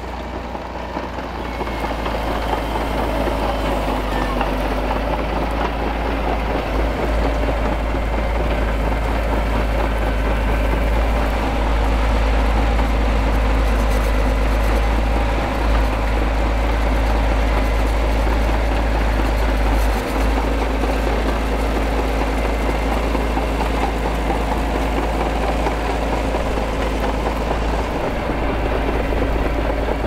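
Caterpillar D6D crawler's 10.5-litre 3306T six-cylinder turbo-diesel running steadily under load, pulling a trailed five-leg subsoiler through stubble. It gets louder over the first couple of seconds, then holds even.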